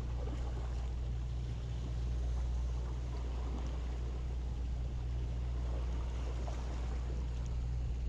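Sportfishing boat's engine running steadily, a constant low hum, under a wash of water and deck noise.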